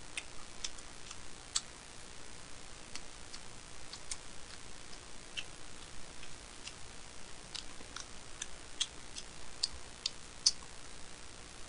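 Light, irregular clicks of someone eating with chopsticks: sharp little ticks, about one or two a second, over a faint hiss.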